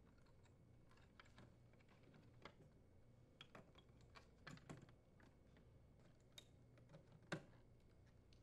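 Faint scattered clicks and taps of wire connectors being pushed onto the refrigerator light socket terminals, with one louder click about seven seconds in.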